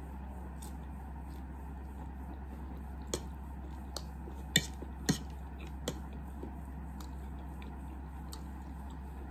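A person eating noodles and chicken with a fork: chewing, with a few sharp clicks of the metal fork against the plate in the middle of the stretch, over a steady low hum.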